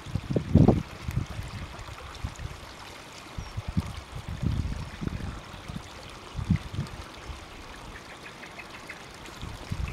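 Steady trickle of running water at a koi pond. Irregular low rumbles of wind buffet the microphone, the loudest about half a second in.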